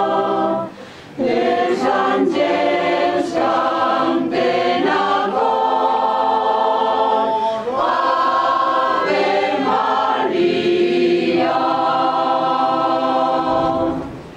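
Choir singing unaccompanied in sustained chords, with a short break about a second in, the piece ending on a held chord near the end.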